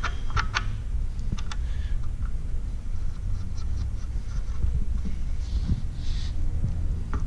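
A few light metallic clicks and short scrapes as scope rings are shifted along a rifle's rail, over a steady low hum.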